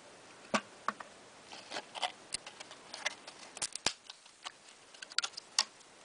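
Clear hard-plastic packaging being handled and opened: irregular light clicks, taps and rustles of plastic as the box is turned and the insert is taken out.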